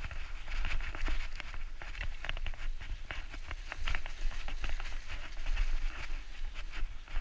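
Mountain bike riding fast down a dirt trail: tyres crunching over dirt and stones, with many quick clicks and rattles as the bike jolts over bumps, over a low wind rumble on the camera's microphone.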